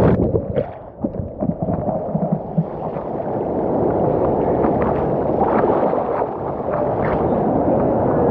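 Muffled sloshing and gurgling of seawater around a swimmer's camera, dull and bass-heavy, with scattered small knocks and clicks. The sound changes abruptly at the start, consistent with the camera going under or into the water.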